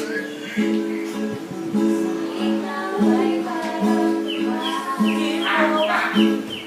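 Acoustic guitar strumming chords in a steady rhythm, with short high falling sounds laid over it in the second half.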